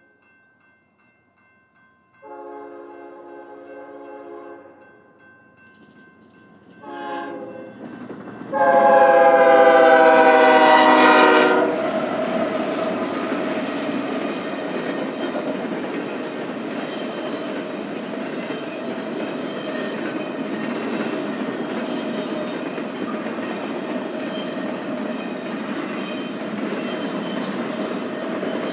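Diesel locomotive air horn leading a BNSF intermodal freight train: a long blast, a short one, then a loud long blast as the locomotive reaches and passes. This is the tail of the long-long-short-long grade-crossing signal. The train then rolls steadily past, with the rumble and clatter of wheels on rail.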